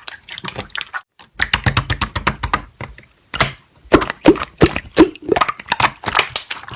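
Slime being worked by hand, making dense crackling clicks, with a run of louder pops about four to five seconds in.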